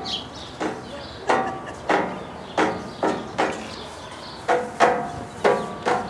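Ostrich pecking at a metal gate rail: a string of sharp knocks, each with a short metallic ring, about two a second, with a pause of about a second near the middle.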